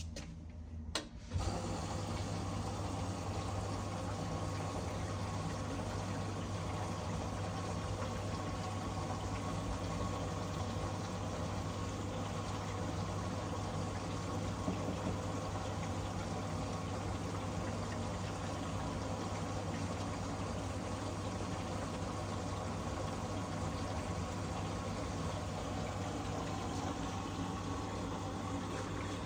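Washing machine filling with water at the start of a quick 15-minute wash cycle: a steady rush of water with a low hum, starting about a second in.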